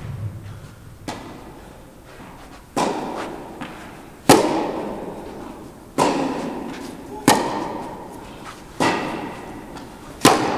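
Tennis ball struck back and forth with rackets in a rally: sharp hits about every one and a half seconds, regular from about three seconds in, each ringing on in the echoing hall.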